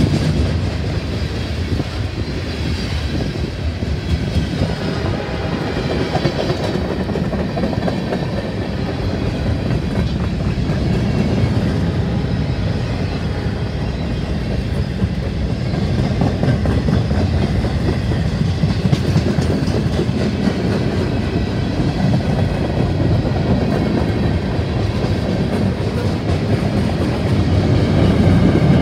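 Mixed freight train of boxcars, tank cars and covered hoppers rolling past close by: a steady rumble with the clatter of steel wheels on the rails.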